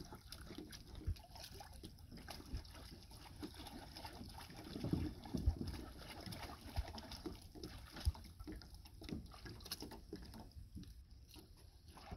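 Faint sloshing and splashing of shallow river water stirred by hands working underwater, with a few small knocks scattered through it.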